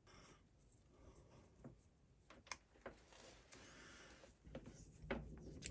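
Near silence, with a few faint clicks and, in the last second or so, soft rustling and ticks of wires and a roll of electrical tape being handled.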